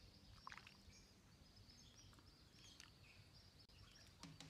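Near silence, with faint high bird chirps throughout.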